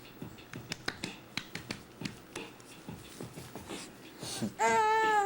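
Scattered light clicks and taps, then near the end a toddler lets out a loud, drawn-out, wavering high-pitched wail.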